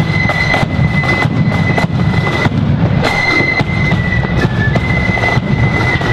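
Marching flute band playing: flutes carry a high melody line that steps from note to note, over continuous snare and bass drum beats.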